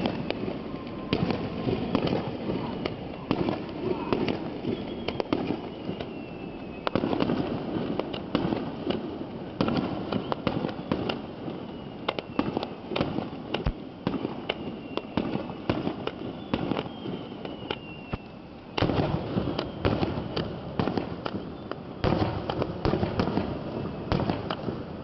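Fireworks display: a steady run of bangs and crackling from bursting shells, coming in clusters, with several sudden louder volleys.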